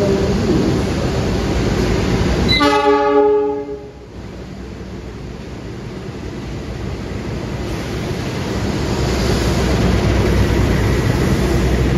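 Diesel locomotive of a passenger train sounding its horn in one blast of about a second and a half, a little over two seconds in, then the locomotive's engine rumble building steadily as it pulls alongside.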